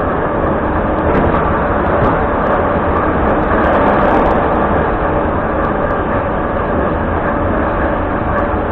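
Cabin noise inside a moving retro metro train car: a loud, steady rumble of the wheels on the rails and the running gear, with a faint steady whine through it.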